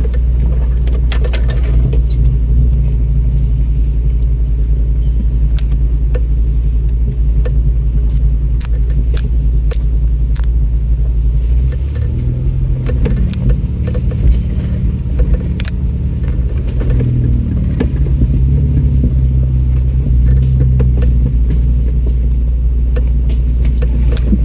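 Off-road truck's engine running low and steady as it crawls over a rough, washed-out trail, with many short clicks and rattles as the vehicle jolts. About halfway, the engine note changes and wavers up and down as the revs vary.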